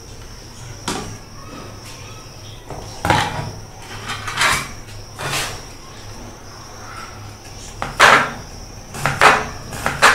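Crinkle cutter slicing a cucumber on a plastic cutting board: about seven separate cutting strokes, a second or more apart at first and coming closer together near the end.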